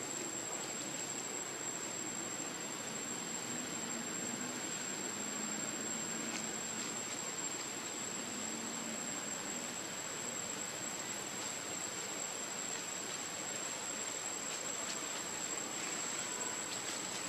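Insects calling steadily: one continuous high-pitched tone over an even hiss.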